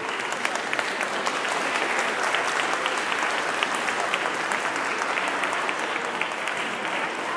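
Congregation applauding: many people clapping in a dense, steady round.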